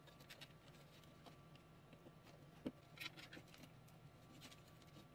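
Near silence: faint room tone with a few soft, scattered clicks, the loudest a little under three seconds in.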